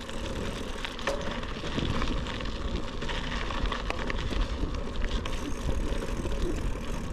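Bicycle riding noise heard through the GoPro Hero 12 Black's microphones under fur windscreens: a steady low wind rumble with tyre-on-trail hiss and small clicks and rattles from the bike. It includes a weird noise that the rider traced to the still-uncovered drain microphone.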